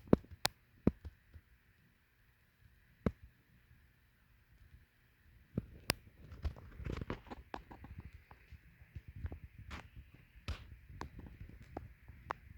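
Irregular knocks and clicks, as of the coolant pump being handled or set down, growing busier about halfway through, over a faint steady hum.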